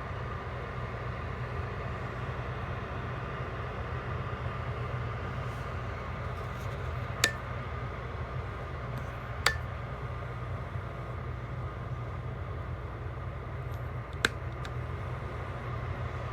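Small ceramic space heater's fan blowing steadily, a constant whooshing with a low hum. Three sharp clicks stand out over it, the first two a couple of seconds apart and the third about five seconds later.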